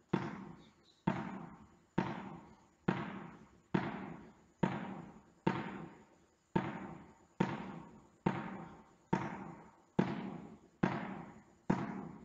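A tennis ball bounced on an indoor court floor from one hand to the other in a V bounce, about once a second: some fourteen even bounces, each with a long echo in the hall.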